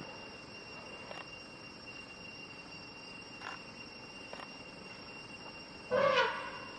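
Insects chirring in a steady high tone, with a few faint ticks. About six seconds in, a short, loud voiced call, pitched and falling slightly, lasting under half a second.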